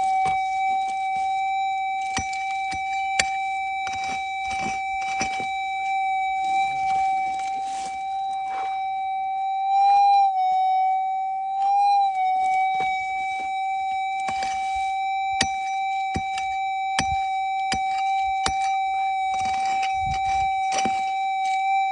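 Minelab gold detector sounding a steady high tone, its pitch rising briefly twice, about ten and twelve seconds in. Over it come scattered clicks and scrapes of digging in creek ground and leaves.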